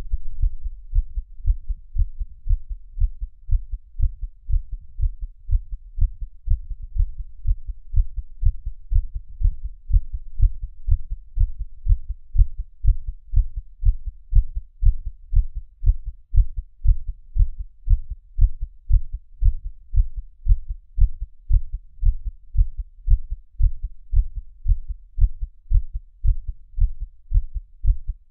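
A person's heartbeat: steady low thumps in an even rhythm of about 85 beats a minute.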